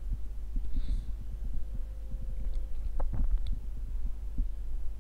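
A steady low hum with soft, irregular low thumps, and one short click about three seconds in.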